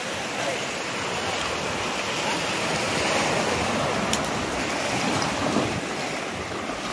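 Small sea waves breaking and washing up onto a coral-rubble beach, a steady surf hiss that grows a little louder in the middle.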